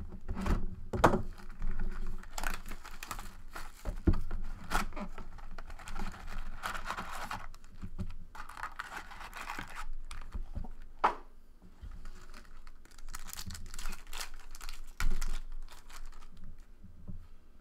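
Trading-card packaging being opened by hand: a box cutter slits a sealed card box, then foil card packs are handled and torn open, with crinkling, tearing and a few sharp clicks.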